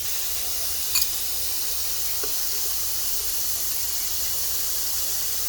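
Chicken breast sizzling steadily as it fries in hot bacon fat in a pan, with one sharp click about a second in.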